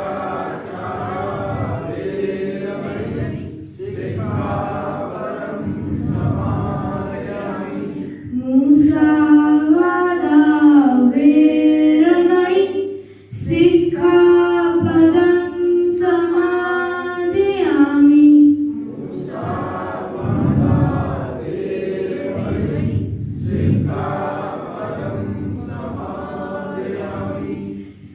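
Buddhist devotional chanting: a group of voices chanting together. About 8 seconds in, a single voice takes over for roughly ten seconds with long, held melodic notes, then the group chanting returns.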